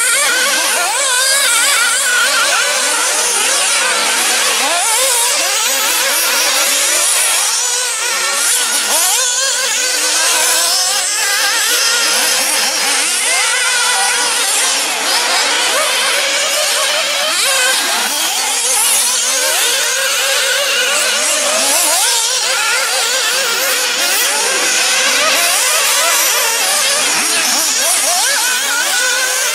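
Several 1/8-scale nitro off-road RC buggies racing, their small glow-fuel two-stroke engines whining high and revving up and down over one another without a break.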